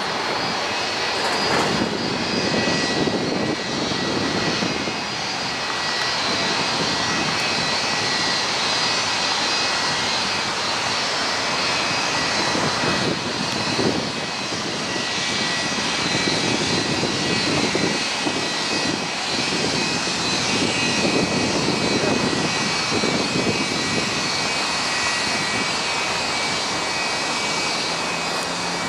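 Boeing 757-200 airliner's two Rolls-Royce RB211-535E4B turbofans running as the jet moves along the runway: a steady rushing jet noise with high-pitched whining tones.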